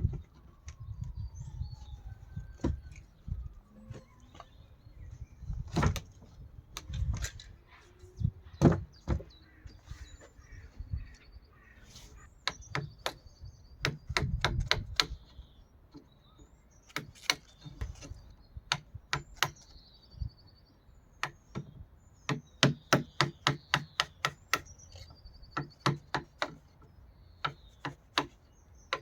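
Hammer blows on wood, in runs of quick, evenly spaced taps with duller knocks and handling noise between them, as a replacement polytunnel door is worked on. Birds chirp faintly in the background.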